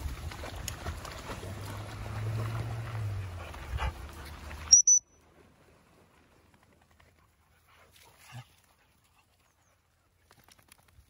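Dogs wading and splashing in a river, with a steady noisy rush. About four and a half seconds in comes a short high squeal, then the sound cuts to near silence with only faint rustles.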